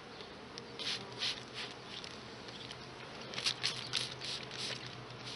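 Trigger spray bottle squirting onto honey bees on an open hive: a few short sprays about a second in, then a quicker cluster around three and a half to four seconds in, over a faint hum of bees. The spray drives the bees down into the hive.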